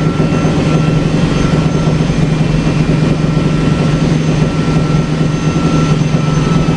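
Yamaha RD 135's single-cylinder two-stroke engine running loudly at a steady, unchanging pitch through an aftermarket Prandini exhaust.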